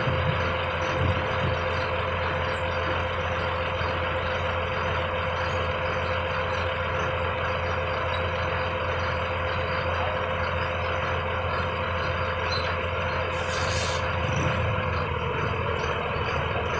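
Loaded multi-axle lorry's diesel engine idling steadily, with a steady whine held at one pitch that dips slightly near the end. A short hiss about thirteen seconds in.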